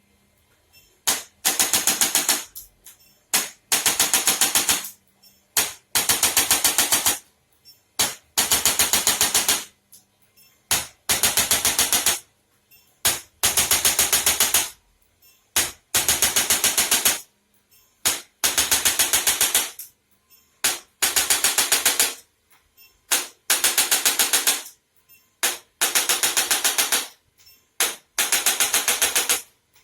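Electric chiropractic adjusting instrument firing in repeated bursts of rapid taps. About a dozen bursts of roughly a second and a half each, one every two seconds or so, starting about a second in.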